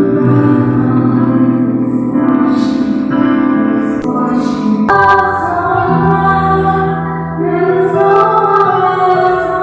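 Praise band playing: sustained keyboard chords over a bass line with a woman singing, the chord shifting about five seconds in, and a few light percussion taps near the end.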